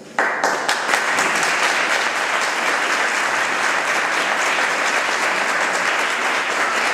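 Audience applauding, breaking out suddenly at the end of a recited poem and holding steady.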